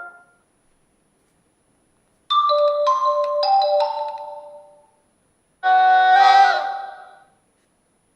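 Two iPhone 4 (iOS 5) alert tones played one after the other. About two seconds in comes a short chime of four notes stepping down over a held lower note. After a short pause comes a brighter, fuller tone with many overtones, lasting about a second and a half.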